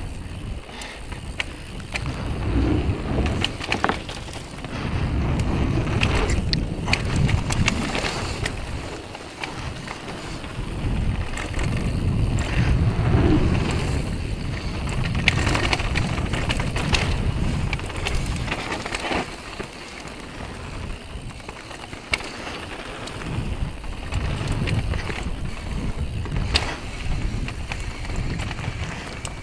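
Downhill mountain bike riding fast over a dirt trail: knobby tyres rumbling on the ground and the bike rattling and knocking over bumps, with wind buffeting the action-camera microphone. The rumble swells and fades every few seconds as the speed changes.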